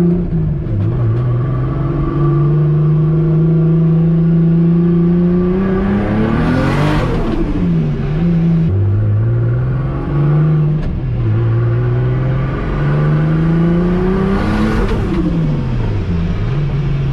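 Turbocharged car engine, fitted with a Pulsar GTX3575R turbo, accelerating hard as heard from inside the cabin. The engine note climbs steadily to a peak with a loud rush of noise about seven seconds in, drops, then climbs again to a second peak near fifteen seconds and falls away. The turbo comes on boost late, at about 3800 rpm, a little laggier with the bigger housing.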